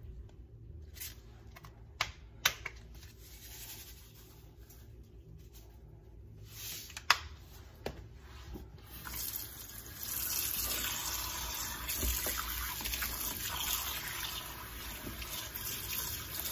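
A few sharp knocks and clatters, then about nine seconds in a kitchen tap starts running steadily, splashing into a plastic tub of catfish pieces in the sink, filling it for the fish to soak in salt and lemon.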